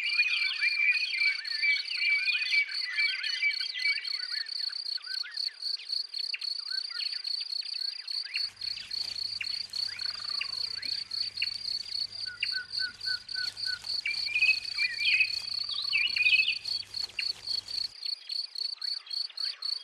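An insect trilling steadily in a fast, pulsing high note, with birds chirping over it off and on.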